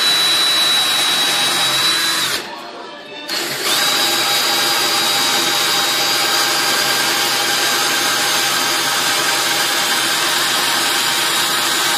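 Cordless drill running, drilling into the carved wooden front of a drawer. It runs steadily for about two seconds, eases off for about a second, then runs again with a slightly higher whine.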